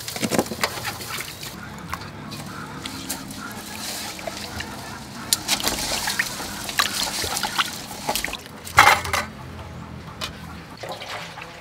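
Water sloshing and dripping in an aluminium bowl as hands scrub a whole raw fish with salt, with irregular wet splashes. A louder splash comes about nine seconds in.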